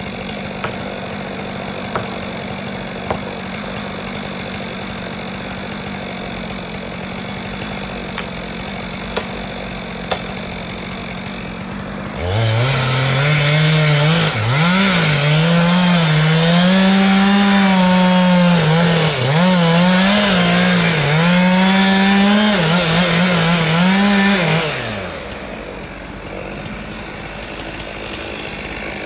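A steady chainsaw drone for about twelve seconds. Then a Stihl MS 462 chainsaw opens up much louder and saws through a log for about twelve seconds, its engine pitch dipping and recovering as it bogs under the cut. It then falls back to a quieter drone.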